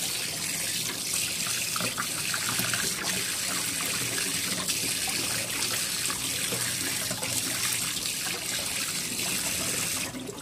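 Water running steadily and splashing onto a wooden surface, cutting off abruptly near the end.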